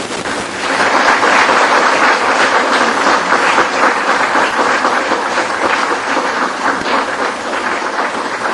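Audience applauding, the clapping swelling louder about a second in and then holding steady.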